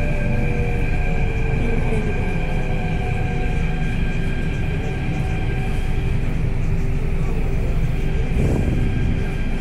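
Delhi Metro Red Line train running, heard from inside the coach: a steady low rumble with a steady electric whine.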